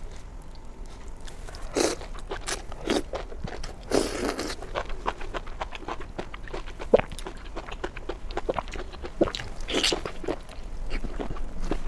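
Close-miked eating: irregular crunchy bites and chewing, with a longer wet, noisy mouth sound about four seconds in.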